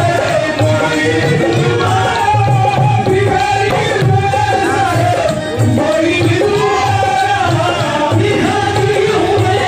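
Qawwali: men's voices singing a Sufi devotional song over a steady hand-drum beat.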